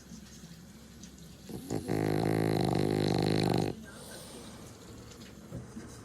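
French bulldog snoring in deep sleep: one long, loud snore starting about two seconds in and lasting nearly two seconds, between quieter snuffling breaths.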